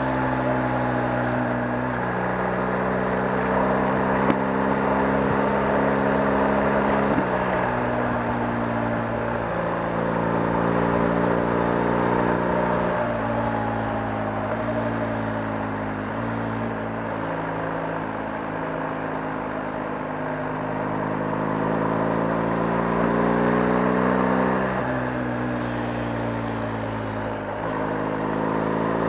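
BMW R 1250 GS's boxer-twin engine running under way, its pitch climbing gradually and then stepping abruptly at several gear changes, over a steady hiss of wind and tyre noise.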